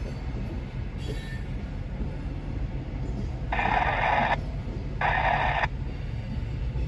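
Loaded coal hopper cars rolling slowly past, a steady low rumble. About halfway through come two short bursts of higher, scratchy noise, each under a second, the second following about a second after the first.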